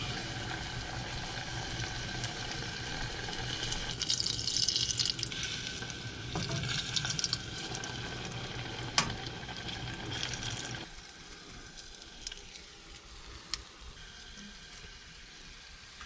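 Leftover pizza deep-frying in hot oil, sizzling and crackling, loudest about four to five seconds in, with a sharp click near nine seconds. After about eleven seconds a low steady hum drops out and the frying goes on more quietly.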